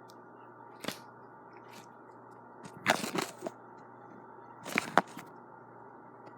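Slime being squeezed and pressed by hand, giving three bursts of crackling and popping: a single snap about a second in, a louder run of pops around three seconds, and another around five seconds.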